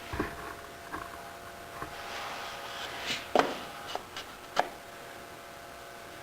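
A piece of wood being handled and set against a band saw sled: a few light wooden knocks and rubs, the sharpest about halfway through, over a faint steady hum.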